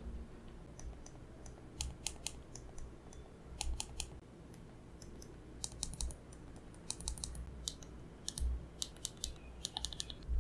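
Light, irregular clicks and taps of two iPhones being handled: an iPhone SE (2022) and an iPhone XR, their aluminium frames and glass backs knocking against each other and against fingertips, in small clusters.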